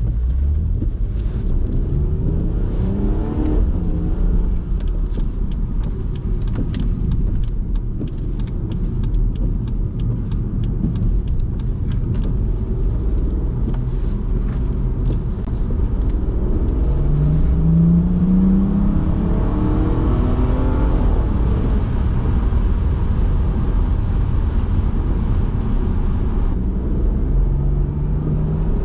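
BMW 340i's tuned, decatted B58 turbocharged straight-six accelerating, its pitch rising in three pulls. Between the first and second pulls there is a run of sharp exhaust crackles on the overrun.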